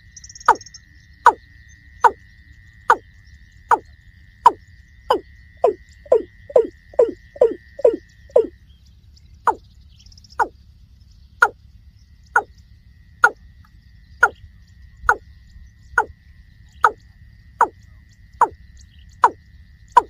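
Water cock calling: a long series of loud, short, downward-sliding hollow notes, about one a second, quickening to about three a second for a couple of seconds in the middle before slowing again. A steady high thin whine runs beneath, dropping out for a few seconds midway.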